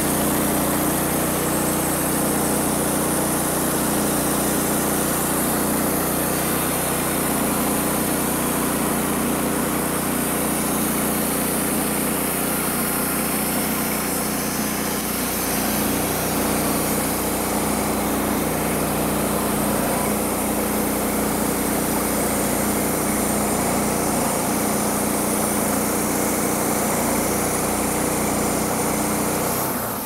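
Small carbureted gasoline engine on a band sawmill running steadily under load as its extremely dull band blade cuts through a log.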